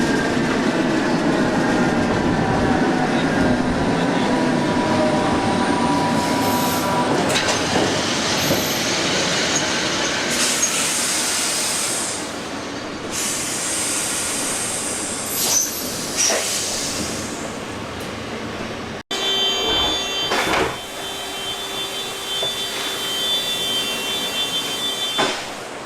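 SNCB AM80 electric multiple unit slowing into a station: the traction motors' whine falls steadily in pitch over the first several seconds and dies away. The stopped train then gives spells of high hissing and a few clunks. After a sudden cut about 19 seconds in, a steady electrical hum follows.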